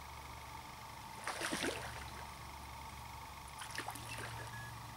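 Water splashing in two short bouts, a louder splash about a second in and a smaller one near the end, over a steady low background hum.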